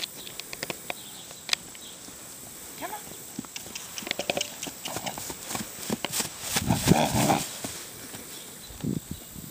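Hoofbeats of a Rocky Mountain Horse running across a grass paddock: a scatter of knocks, loudest in a burst about seven seconds in.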